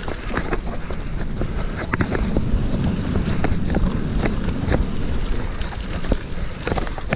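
Mountain bike descending a rocky downhill trail: tyres rumbling over stones, with frequent irregular clicks and rattles from the bike, and wind buffeting the action camera's microphone.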